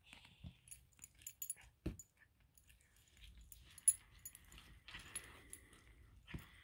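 A Maine Coon cat biting and chewing at a piece of fried chicken on a hard floor. The metal fittings on its collar clink and jingle, with a few dull knocks as the chicken is pushed about, and one sharp click about four seconds in.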